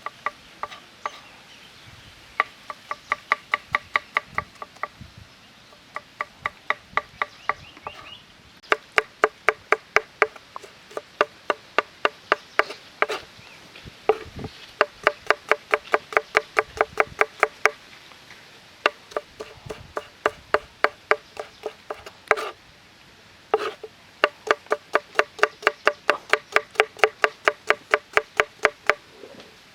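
A metal utensil striking metal cookware in quick runs of ringing clinks, about five a second, with short pauses between the runs.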